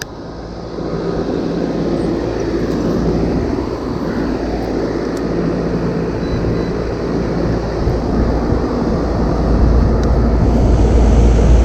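Lennox ML13ACX air-conditioner condenser running just after a restart, its compressor humming and condenser fan blowing steadily. It grows louder over the first second and again later on.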